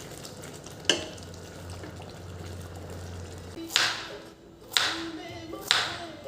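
A steady hiss with a low hum and one sharp click about a second in. About four seconds in, music takes over with sharp beats roughly once a second.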